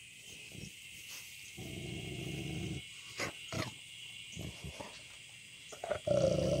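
A dog growling low, twice, each growl a little over a second long, the second one louder, near the end.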